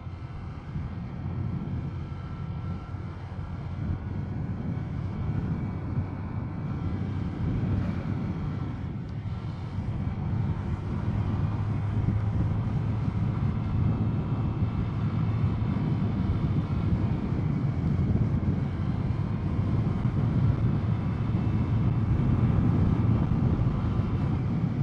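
Honda Click scooter's single-cylinder engine running under way, with wind rushing past, growing steadily louder as it gains speed.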